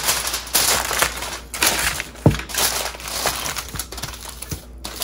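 Aluminium foil crinkling and crackling as it is pressed and crimped down over a glass baking dish. A sharp knock comes a little past two seconds in.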